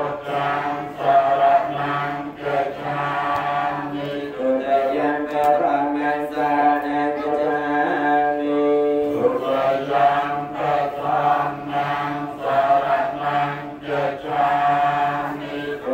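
Group of voices chanting Khmer Buddhist prayers (sot mon) in unison, a steady recitation in long held phrases with short breaks between them.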